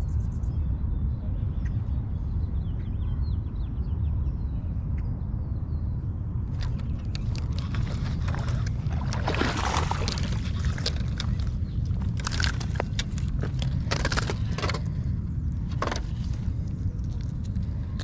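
Steady low rumble of wind on the microphone. From about six seconds in it is joined by a run of clicks, scrapes and rustles as a caught bass is handled on the rocky bank.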